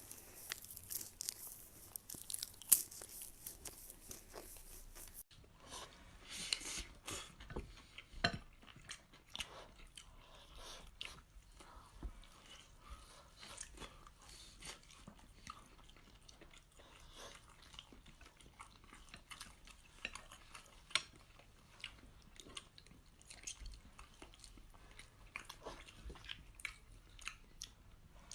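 A person biting and chewing crunchy food close to the microphone: irregular crisp crunches and small wet clicks of mastication, with a few louder bites.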